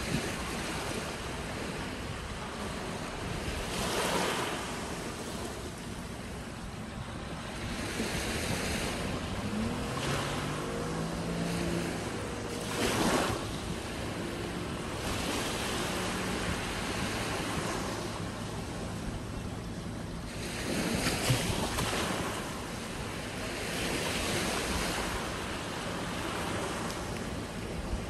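Small waves lapping onto a sandy beach, swelling into a wash of surf every few seconds and drawing back in between.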